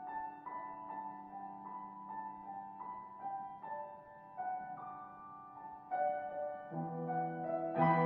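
Instrumental music: a slow, gentle piano melody of held notes, with deeper notes joining and the music growing louder near the end.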